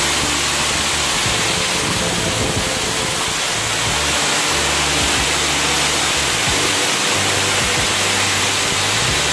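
Steam hissing steadily and loudly from the standing LNER Thompson B1 4-6-0 steam locomotive 61306 Mayflower, blowing off at rest, with held low music notes changing underneath.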